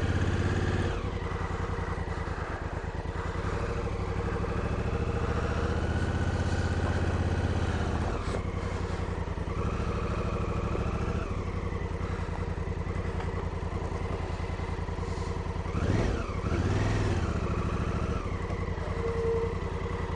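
Honda Africa Twin CRF1000L's parallel-twin engine running at low revs, cold, with thick oil, with a few brief rises and falls in revs as the bike is eased along.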